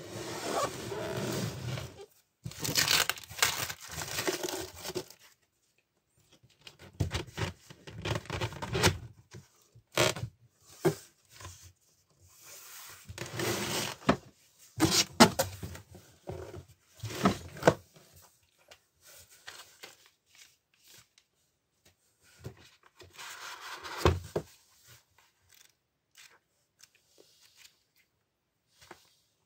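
Cardboard packaging being opened and unpacked by hand: irregular bursts of cardboard scraping, rustling and tearing, with scattered sharp knocks, growing sparser and quieter near the end.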